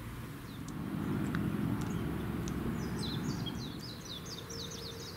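Outdoor ambience: a low rumble swells for a couple of seconds. From about three seconds in, a small bird sings a fast run of high chirps.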